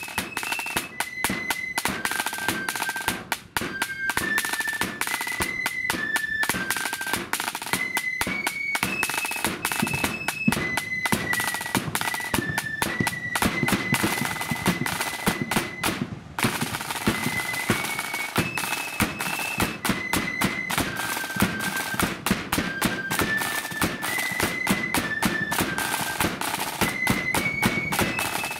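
Marching flute band playing a march: flutes carrying a stepping tune over rattling snare drums and a bass drum beat. The music breaks off for a moment about halfway and the tune starts again.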